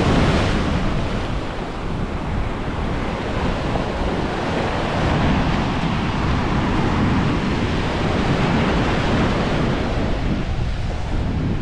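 Sea surf breaking and washing up the shore, with wind rumbling on the microphone.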